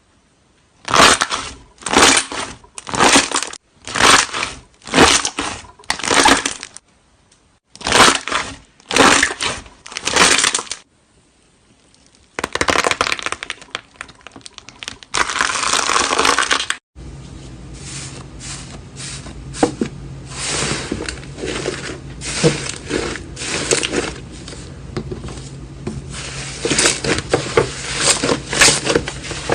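Slime being squeezed and pressed by hand, crackling and crunching: about ten separate crunches roughly one a second, then a denser stretch of crackling. After an abrupt cut come many small crackles and pops over a low hum.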